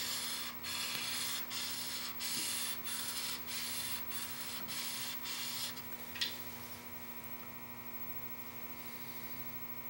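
Steel chisel in a honing jig rubbed back and forth on a fine DMT diamond sharpening stone: a gritty hiss at about two strokes a second that stops about six seconds in, followed by a short click. A steady electrical hum runs underneath.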